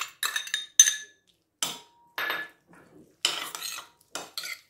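Glass bowls clinking and a spoon scraping against a glass mixing bowl as canned corn kernels are tipped into beaten egg and stirred. It comes as a series of short, irregular bursts, with a ringing glass clink about a second in.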